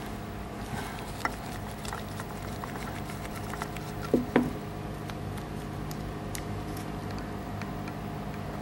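Screwdriver working the cap screws of a Maytag 72 connecting rod on its crankshaft: small metal clicks and scrapes, with two short, louder squeaks falling in pitch about four seconds in, over a steady background hum.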